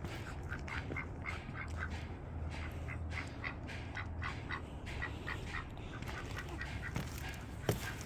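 Young black Muscovy ducklings peeping, a quick string of short high calls, over a low steady hum, with one sharp knock near the end.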